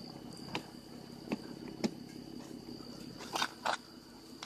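A steady high-pitched insect drone, crickets or similar, with a few soft clicks and scuffs scattered through it, two of them close together near the end.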